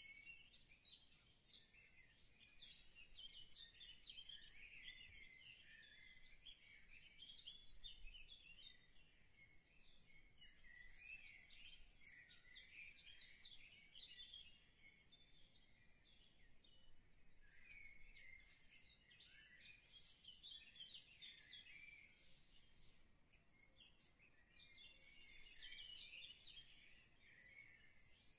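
Faint, continual chirping and twittering of many small birds.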